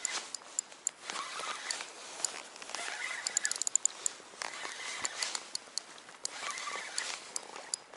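Spinning reel cranked on a lure retrieve, its mechanism ticking in quick runs, over a rushing wash of wind and choppy water.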